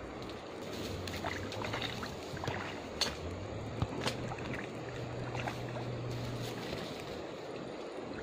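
River water sloshing and splashing in the shallows at the bank, over a steady low rushing background, with a few sharp clicks scattered through it.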